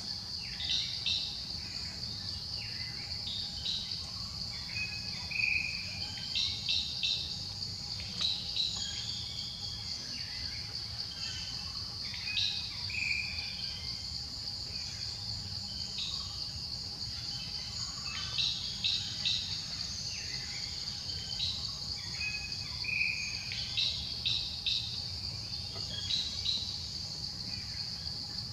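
Steady, high-pitched drone of insects in the trees, with short bird chirps and calls breaking in every few seconds.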